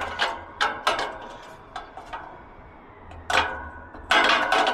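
Small metal lock parts clicking and clinking against each other as they are handled and fitted, each knock ringing briefly. A handful of separate clicks come first, then a louder run of clinks near the end.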